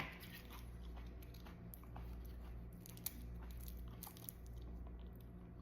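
Faint chewing and mouth sounds from someone eating a hot pepper, a few soft clicks, over a steady low hum.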